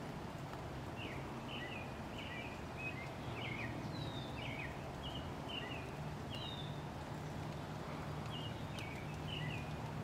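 A small songbird singing in short bouts of quick, high, chirpy notes, over a steady low background rumble.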